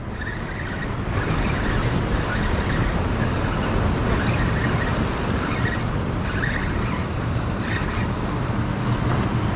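Surf washing and breaking over the jetty rocks, over a steady low drone from a passing motorboat's engine.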